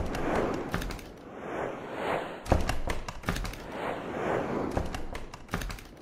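Intro-animation sound effects: whooshes that swell and fade about once a second, with sharp impact hits at the start, in a cluster around two and a half to three seconds in, and again near the end.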